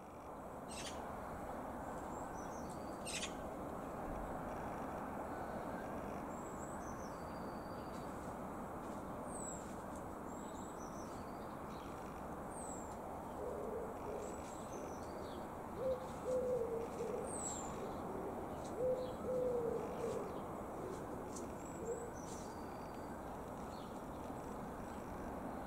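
A pigeon cooing in short repeated phrases from about halfway through, with small birds chirping high above a steady low background rumble.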